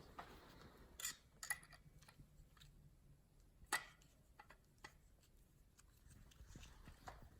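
Faint, scattered metal clicks of an Allen wrench turning a bolt out of a refrigerator freezer-drawer handle: a few separate ticks, the loudest about three and a half seconds in.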